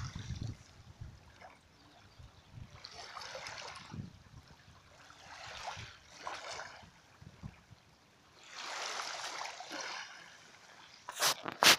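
Small waves lapping and splashing in swells every two to three seconds, with two sharp, loud slaps near the end.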